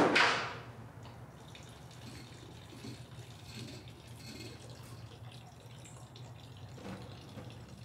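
A sudden loud rush right at the start that dies away within a second, then faint trickling and dripping water over a steady low hum in a tiled restroom.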